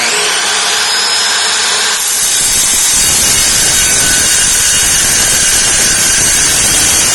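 Kobalt 7-1/4 inch miter saw running loud with a carbide-tipped metal-cutting blade, cutting through 1/4 inch rebar. About two seconds in the sound turns rougher and grittier as the blade works through the steel bar.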